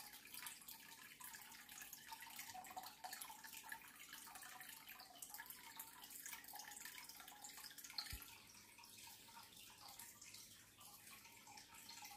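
Near silence: faint room tone with light ticking and a faint hum, and a single low thump about eight seconds in.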